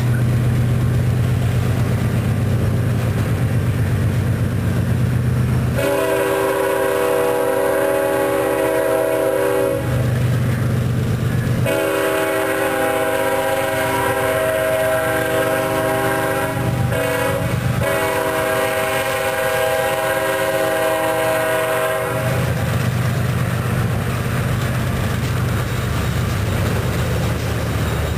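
Double-stack intermodal freight train rolling past with a steady low rumble of wheels on rail. After a few seconds a multi-note diesel locomotive horn chord sounds in long blasts: two long ones, a brief break, then another long one. It covers the rumble until it stops well past the middle.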